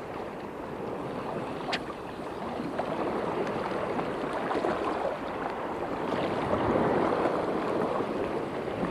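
Choppy estuary water lapping and sloshing, a steady rushing wash, with one sharp click about two seconds in.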